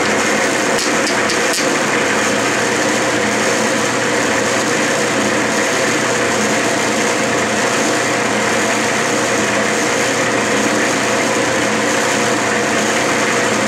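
Clausing metal lathe running steadily in reverse, a constant machine hum with several steady tones. At the start its threading tool is cutting a 10-threads-per-inch thread in Delrin plastic, with a few faint ticks about a second in.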